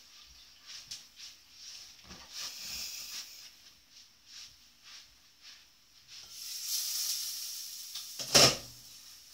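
Cookware being handled on the stove: a few soft clicks and rustles, two spells of hissing, then one loud clunk of a pot or lid set down, with a short ring, near the end.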